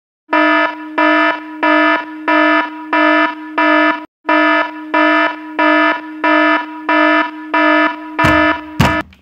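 Phone alarm going off as a steady run of loud, buzzy electronic beeps, about one and a half a second. Near the end a few knocks of the phone being handled, and the alarm stops.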